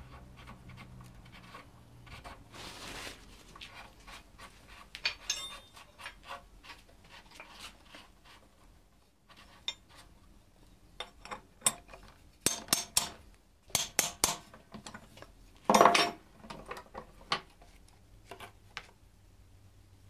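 Metal clinks, knocks and rubbing from the VANOS hub, its bearings and steel hand tools being handled in a bench vise. The knocks come scattered, bunch together in the middle, and the loudest comes about 16 seconds in.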